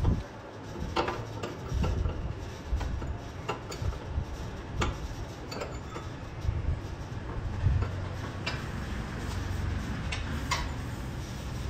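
Irregular sharp metallic clicks and clinks of a spanner working on a car's steering tie rod, adjusting toe during wheel alignment, over a low steady rumble.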